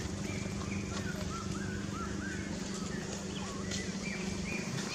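Birds chirping in the background, a string of short, quick whistled notes that hook up and down in pitch, over a steady low hum.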